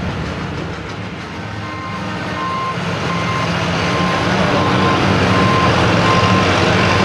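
Vehicle reversing alarm beeping steadily, about one and a half beeps a second, starting about two seconds in, over an antique pulling tractor's engine running at low speed that grows louder toward the end.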